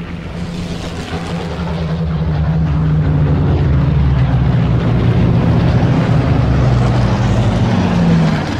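A loud, steady engine drone with a dense rushing noise over it, swelling in the first few seconds and then holding.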